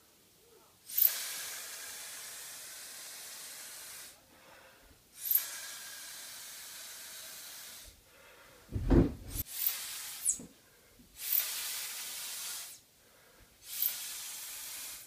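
Mouth-blown atomizer spraying ink onto paper: four long hissing sprays of one to three seconds each, each starting sharply. A brief low puff of breath comes about halfway through.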